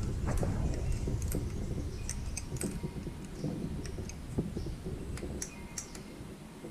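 Irregular light metallic clicks and clinks of hand tools and engine parts being handled, over a low rumble that fades away.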